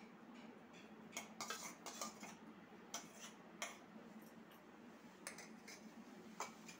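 Faint, scattered clinks and scrapes of a spoon against a steel bowl as leftover stuffing is scraped out of it.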